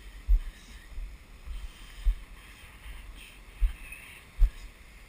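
Heavy ocean surf washing as a faint steady hiss, broken by several sharp low thumps on the microphone.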